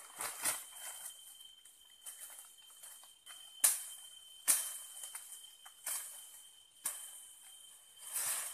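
Brush and dry leaves rustling as a man cuts and pulls down thin saplings with a machete, with several sharp cracks of wood, the loudest about three and a half seconds in. A steady high insect drone runs underneath.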